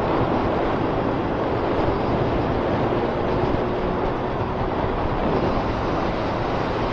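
Steady wind rush buffeting the action camera's microphone as a Honda Fireblade motorcycle rides along at road speed, with the bike's inline-four engine running at a steady note underneath.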